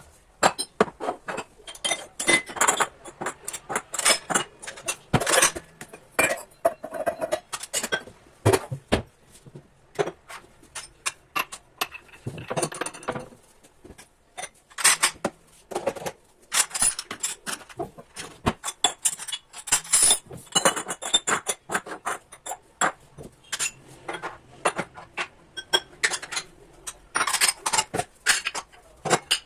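Dishes and cutlery being handled, a run of irregular clinks and knocks of crockery, glass and metal utensils.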